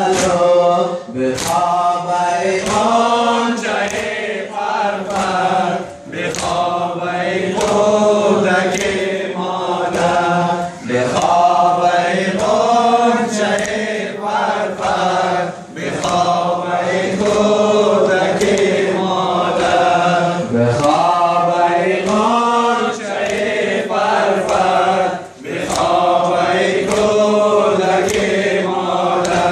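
A group of men chanting a Shia mourning lament (noha) in unison, with the rhythmic slaps of sina zani chest-beating (matam) falling about once a second.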